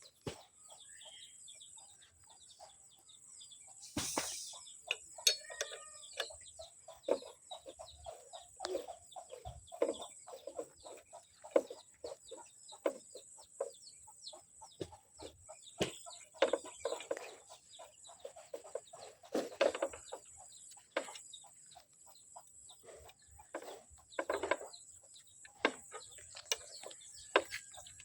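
Chickens clucking on and off in short, irregular calls, with a sharp knock about four seconds in and a faint steady high whine behind.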